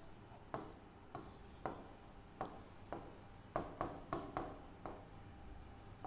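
Pen writing on an interactive digital board: faint, unevenly spaced sharp taps and short scratchy strokes, about ten in all.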